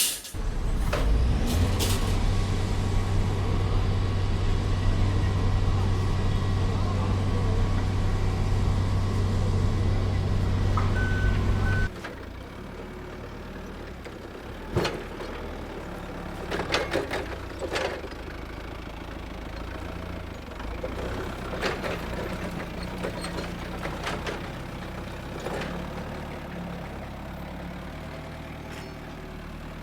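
Heavy construction-vehicle engine running loudly and steadily, with a brief high beep near the end of this stretch. It then cuts to a quieter idle broken by scattered knocks.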